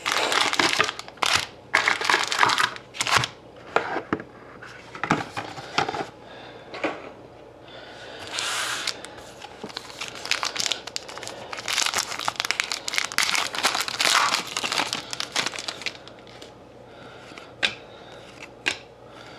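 Foil wrapper of a Panini Rookie Anthology hockey card pack crinkling and tearing as it is handled and ripped open by hand, in irregular bursts, with a few short sharp clicks near the end.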